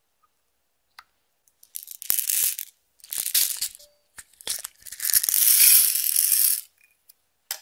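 Clear slime being squished and worked by hand, giving crackling, popping bursts from trapped air. There are several short bursts and one longer one about five seconds in.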